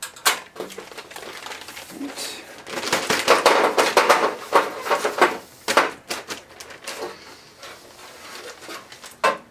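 Plastic bag rustling and crinkling as new TV LED backlight strips are drawn out of it, the strips clicking and clattering against each other. It is busiest a few seconds in, with a sharp click near the end.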